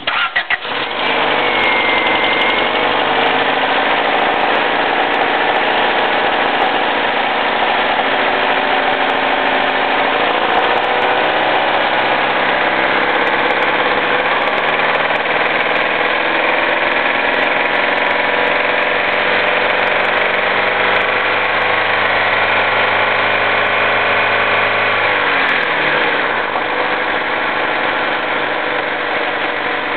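Honda D16Z6 1.6-litre SOHC VTEC four-cylinder catching at the start and idling steadily, with the knock the owner is recording. The idle speed rises a little about ten seconds in and drops back near the end.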